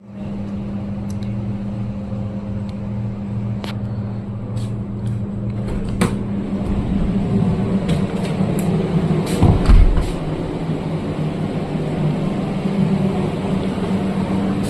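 Cold-room refrigeration machinery running with a steady hum, with scattered light clicks and taps and a low thump just before ten seconds in.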